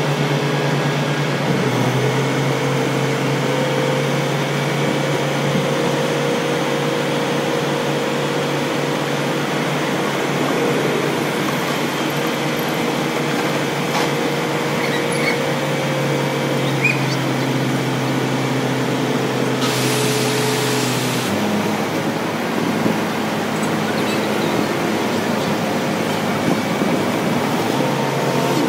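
Grove TM1500 hydraulic truck crane running as its boom is lowered: a steady engine and hydraulic pump drone whose hum shifts pitch about 2 seconds in and again about 21 seconds in, with a short hiss about 20 seconds in.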